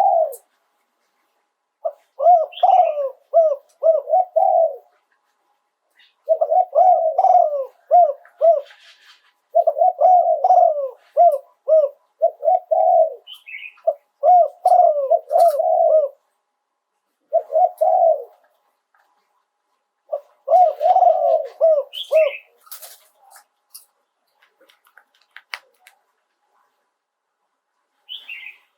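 Spotted dove cooing in about six bouts of quick low coo notes, with short pauses between them. A brief higher chirp comes in three or four times.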